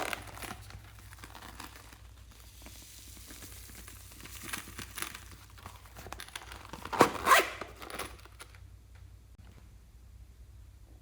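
Hands squeezing and stretching slime, with sticky, uneven noise. There is a small spell about four and a half seconds in and a louder one about seven seconds in, with quieter handling between and after.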